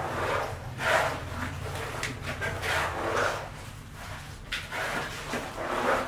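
Irregular scraping and rustling from workers placing wet concrete by hand into rebar formwork, the scrapes coming every second or so over a low hum that fades out about two seconds in.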